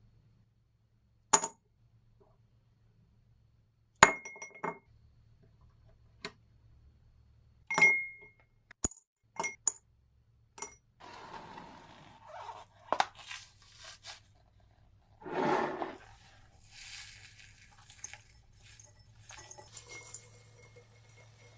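Hard parts clinking as they are handled and set down, several separate sharp knocks, some with a short ring. After that come scraping and rubbing sounds, with one louder scrape partway through.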